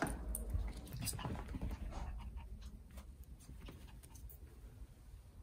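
Maltese dog panting, with a few soft taps of footsteps on a wooden floor near the start.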